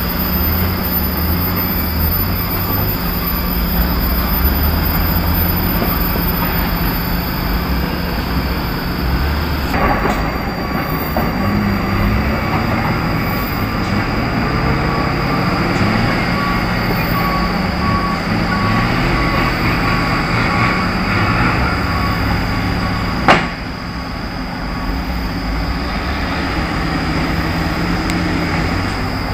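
Diesel engines of a line of Hino dump trucks and a hydraulic excavator running together in a steady low rumble. One sharp bang stands out about three-quarters of the way through.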